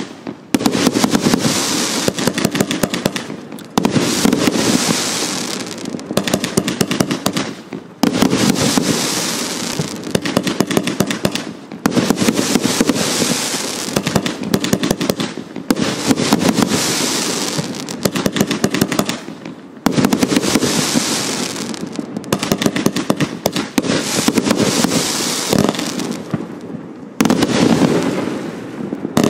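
Hallmark Fireworks Organised Chaos 174-shot compound firework cake firing: dense, rapid volleys of shots and bursts. They come in surges about every four seconds, each starting loud and fading away.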